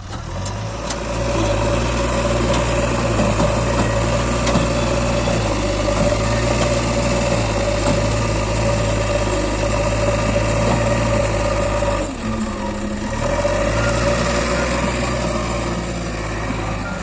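Heavy diesel engine of earth-moving machinery running steadily under work, with a steady tone above its low rumble; the sound drops out briefly about twelve seconds in and then picks up again.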